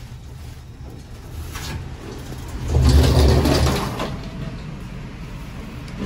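Elevator doors sliding, with a loud low rumble swelling about three seconds in and fading over a second.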